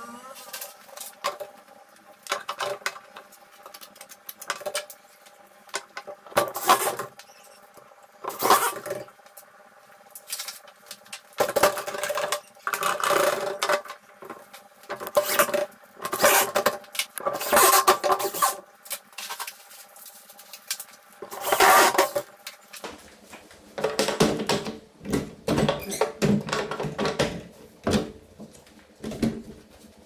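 Cordless drill driving screws into wooden latch handles in repeated short bursts of one to two seconds, with clicks and knocks of wood between them.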